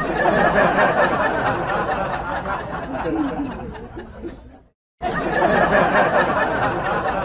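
A group of people laughing and chattering. It stops about four and a half seconds in and starts again a moment later.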